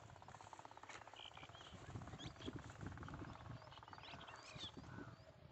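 Faint outdoor ambience: small birds chirping now and then over a low rumble of wind on the microphone.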